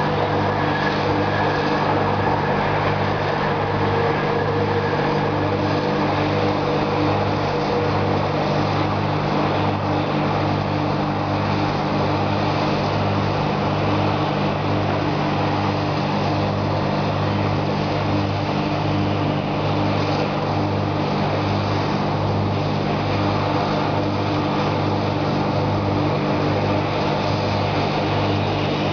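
Heavy engine running steadily at a constant speed, with an even, rhythmic low throb.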